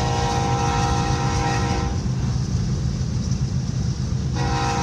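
Locomotive air horn sounding a steady multi-note chord: one blast that cuts off about two seconds in, then a second blast starting near the end. Underneath is the constant low road rumble of the car that is pacing the train.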